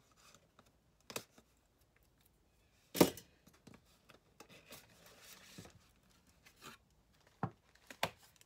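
A cardboard box and its paper packaging being handled and opened: scattered rustling with a few sharp knocks and snaps, the loudest about three seconds in.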